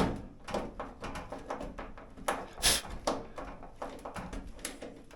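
Clicks and scrapes of a hand screwdriver turning tight screws into plastic posts on a GE dryer's front panel, with a sharp knock at the start and a brief louder scrape about two and a half seconds in.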